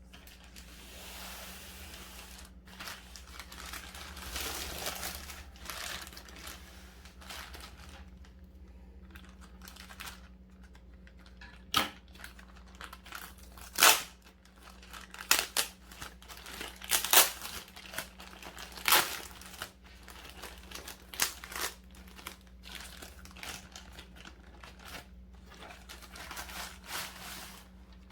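Packaging being handled and torn open: rustling and crinkling of wrapping, with a run of sharp ripping sounds in the middle, several of them loud.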